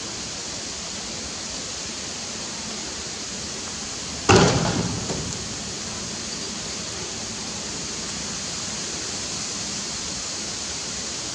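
Steady outdoor hiss, with one sudden loud thump about four seconds in that dies away over about a second.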